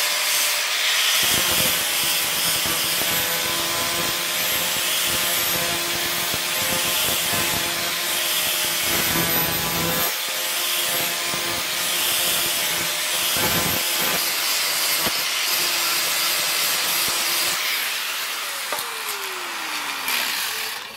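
Angle grinder with an abrasive disc grinding the edge of a forged bearing-steel knife blade: a steady, harsh metal-on-abrasive grinding noise over the motor's whine. Near the end the whine falls in pitch.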